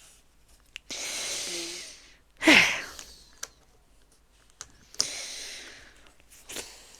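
Breathy exhalations close to the microphone, one of them a falling voiced sigh about two and a half seconds in, with a few light clicks of plastic LEGO pieces being handled.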